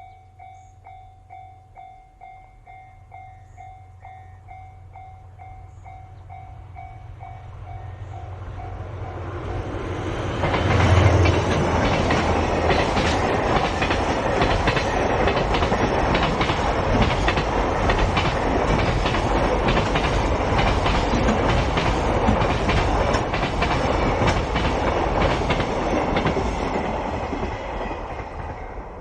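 A Japanese level-crossing alarm starts ringing, a repeated bell tone about twice a second. About ten seconds in, a train reaches the crossing and passes for some fifteen seconds, its wheels clattering over the rail joints and drowning out the bell, then fades near the end.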